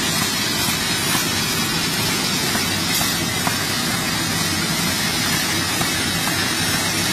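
Gaotian automatic paper box-forming machine running, a steady dense mechanical noise with a few faint clicks scattered through it.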